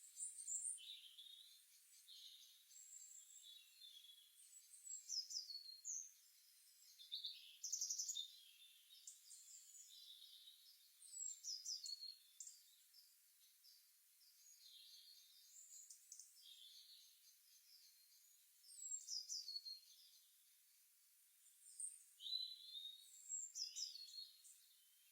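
Songbirds singing: high chirps and short phrases that sweep downward in pitch, coming in bursts every few seconds, with softer chirping between.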